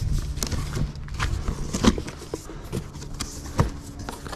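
Cardboard box flaps being pulled open and folded back by hand, with scattered scrapes and rustles of corrugated cardboard and two sharper knocks, one near the middle and one about three-quarters through.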